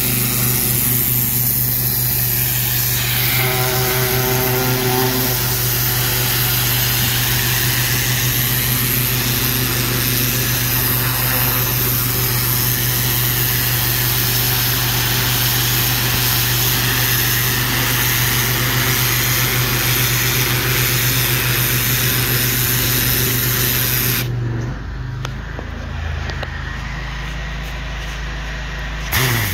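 Pressure washer spraying a high-pressure water jet against a brick wall: a loud, steady hiss over the steady hum of the machine's engine. About 24 seconds in the spray stops and the engine runs on alone, until the jet starts again right at the end.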